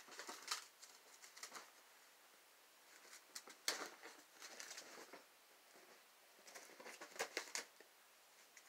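Faint bursts of crinkling and rustling as a cat pounces on and bats a crumpled paper ball, its paws scuffling on a fabric throw. They come in four short flurries of quick crisp ticks, quiet between them.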